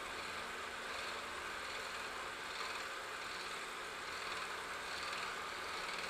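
Milling machine running with a 4-flute end mill cutting the workpiece steadily: an even hiss with a faint regular pulse.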